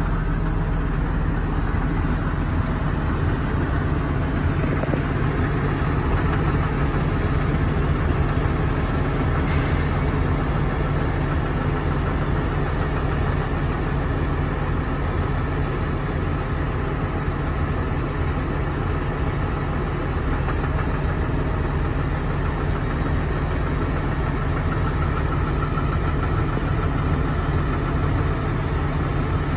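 Fendt 936 Vario tractor's six-cylinder diesel engine idling steadily, with a short hiss about ten seconds in.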